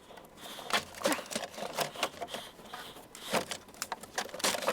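Scattered light clicks and knocks of hand tools and parts being handled during engine repair work, with a few louder knocks about a second in and again later on.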